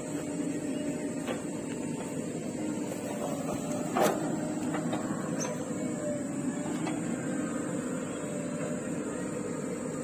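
Diesel engines of a JCB 3DX backhoe loader and a Mahindra 585 DI tractor running steadily during loading, with one sharp knock about four seconds in and a few fainter clicks.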